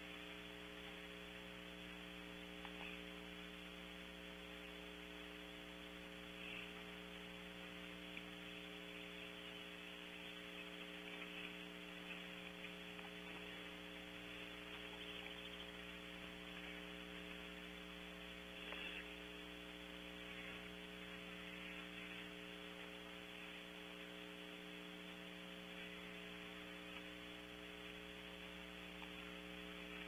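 Steady electrical hum with a layer of hiss from a nest-box camera's microphone, broken only by a few faint, brief sounds.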